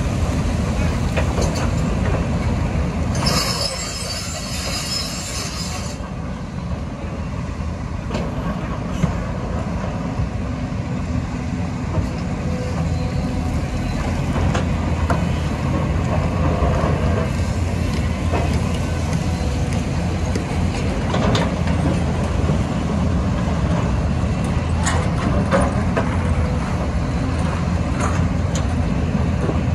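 Diesel engines of two Doosan crawler excavators running steadily under load as they dig and swing gravel, with the occasional knock of bucket and stone. A patch of hiss lasts a few seconds, starting about three seconds in.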